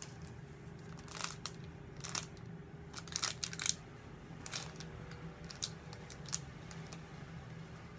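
Packaging being handled: short, scattered crinkles and rustles of paper and packing material, one or two at a time, spread over several seconds.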